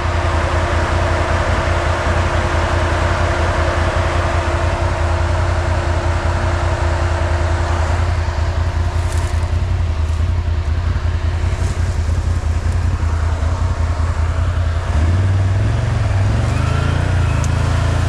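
Can-Am ATV engine running steadily with a low rumble and a steady whine above it, then revving harder about fifteen seconds in.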